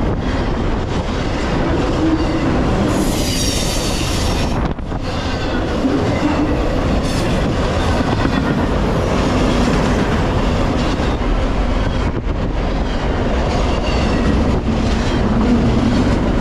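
Double-stack container freight cars rolling past close by: a steady rumble and clatter of steel wheels on the rails. A high wheel squeal rises about three seconds in and lasts over a second, with fainter squealing again near the end.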